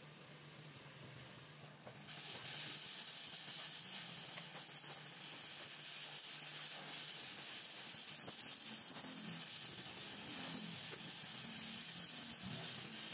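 Gas welding torch flame hissing steadily while aluminium filler rod is melted onto an aluminium motorcycle crankcase. The hiss starts faint and gets much louder about two seconds in.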